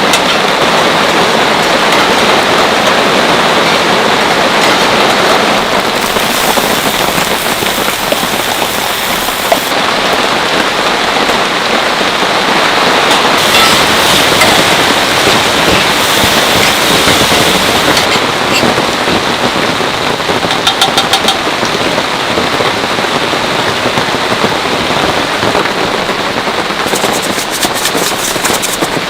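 Heavy rain falling steadily and loudly close to the microphone, with clusters of sharp drop ticks standing out now and then.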